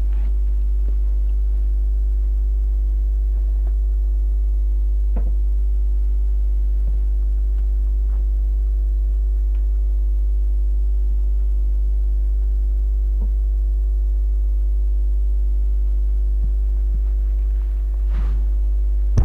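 Steady, loud electrical mains hum, a deep 50 Hz drone with a row of higher steady overtones, unchanging throughout, with a few faint small knocks.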